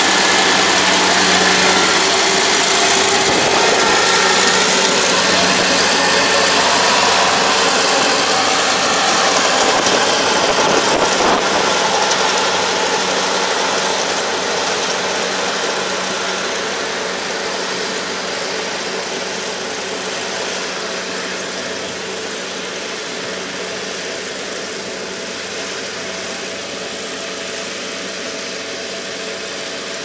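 Kubota ARN460 combine harvester's diesel engine and machinery running steadily. The sound fades gradually as the combine moves away across the field.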